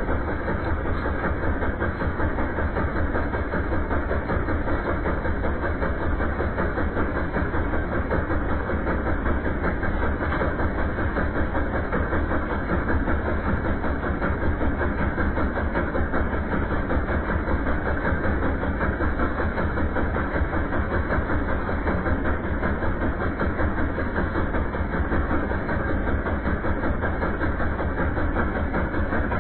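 Mahindra Arjun tractor's diesel engine idling steadily.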